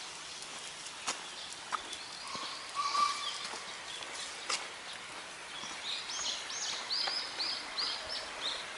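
A songbird singing a quick run of about eight high, arching notes in the second half, over steady outdoor background noise with a few light clicks.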